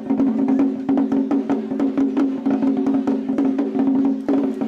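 Ensemble of rope-laced taiko drums struck with wooden bachi sticks in a fast, steady rhythm, about four strokes a second, each stroke ringing with the drums' deep tone.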